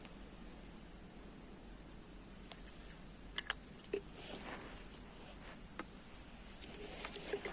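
Faint field ambience: a steady high-pitched hiss typical of insects, with scattered light clicks and rustles from about two and a half seconds in, the sharpest near the end.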